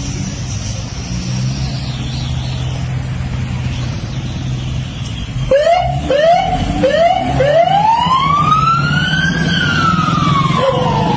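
Ambulance siren cutting in about five seconds in with four quick rising whoops, then one long wail that climbs and falls again, over a steady vehicle engine rumble.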